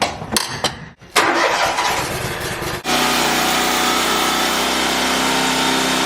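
A few clicks, then the SCAG Cheetah zero-turn mower's engine starting up. From about three seconds in it runs at a steady speed.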